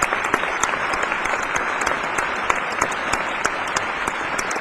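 Crowd applauding: steady clapping made up of many quick, sharp claps.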